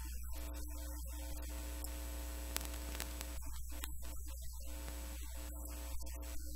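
Steady low electrical mains hum with a faint hiss, holding constant without a break.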